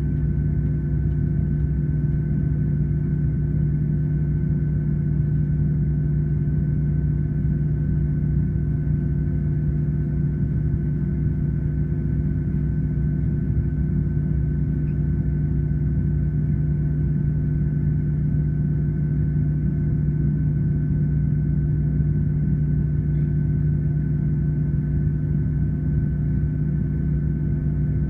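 Cabin noise of a Boeing 737-800 on the ground, its CFM56-7B turbofans running at idle taxi power. A steady low drone with a faint high whine above it, heard from inside the cabin.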